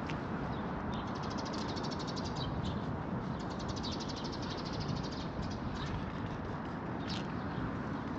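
A small songbird giving a fast, high trill of evenly spaced notes for a few seconds, then one short chirp near the end, over a steady low rumble of city traffic.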